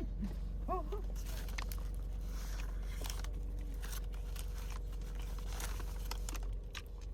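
Someone biting and chewing food close to the microphone, with irregular crunching, crackling and crinkling.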